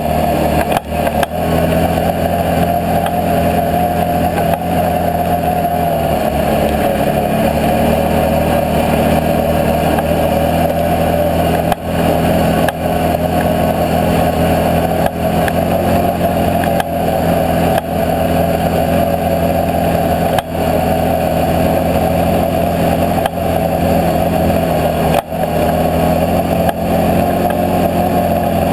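Can-Am Outlander 650 XMR ATV's V-twin engine running loud and steady under way, holding a fairly even engine speed with only brief small dips.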